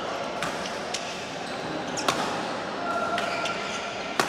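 Badminton rackets striking a shuttlecock in a fast doubles rally: a run of sharp hits, roughly one a second, with a few short squeaks between them.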